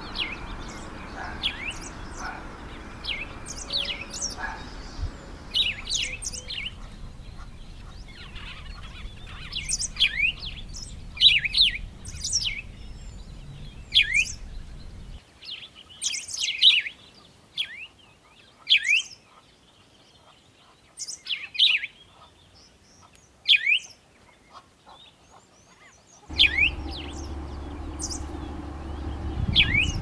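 Small songbirds chirping: quick, sharp notes that sweep downward in pitch, coming in short clusters every second or two. A low background rumble under them drops away about halfway through and returns near the end.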